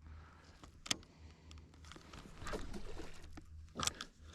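Rod and tackle handling: a sharp click about a second in, a longer rustling, scraping stretch in the middle, and another click near the end, over a steady low hum.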